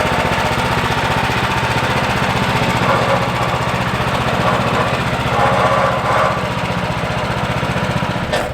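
Woodland Mills HM126 portable bandsaw sawmill cutting a log: its small gasoline engine runs steadily with a rapid even firing beat under the whine of the blade, and the sound drops off just before the end as the cut finishes.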